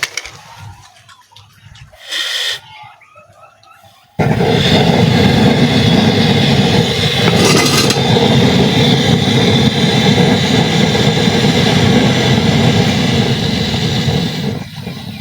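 Gas burner under a cooking pot, lit about four seconds in and then burning with a loud, steady rushing noise that eases near the end; a brief burst of noise comes about two seconds in.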